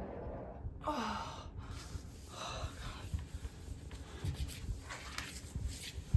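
A woman's audible breathing, with a gasp-like breath falling in pitch about a second in, then softer breaths and small rustles. One sharp click comes right at the end.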